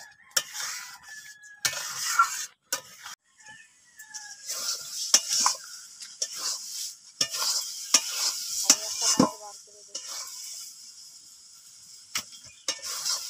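Metal spatula stirring and scraping a thick semolina, milk and sugar mixture in a kadai, with irregular clinks and scrapes against the pan over a hiss of the mixture cooking as its liquid dries off.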